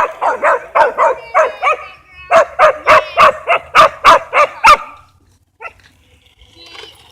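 Dog barking at a remote-control car in fast repeated barks, about four a second, in two runs with a short break between them, then stopping for a couple of seconds near the end.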